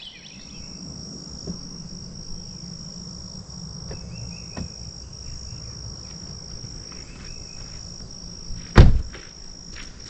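An insect buzzes steadily at a high pitch throughout. Just before the end, a car door slams shut once, loudly.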